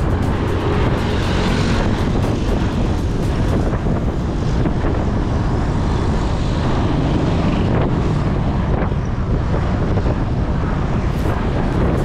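Steady wind rumble on the microphone of a camera carried on a moving bicycle, mixed with road and traffic noise.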